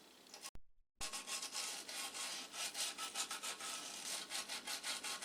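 Rapid, irregular scratchy rubbing strokes on a circuit board, like scrubbing or scraping at corroded solder pads. It starts about a second in, after a brief dropout in the sound.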